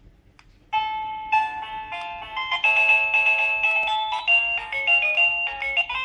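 Aerb wireless doorbell receiver playing an electronic chime melody, a quick tune of stepped beeping notes that starts suddenly just under a second in, after a faint click. The receiver is sounding a new melody as its 'music' button is pressed to choose the tune for a transmitter.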